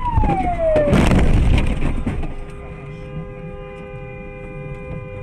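Tyres of a skidding red BMW squealing, the pitch falling, then about a second in a loud crunching collision lasting about a second as the car strikes the dashcam car. After the impact a steady held tone runs on under the road noise.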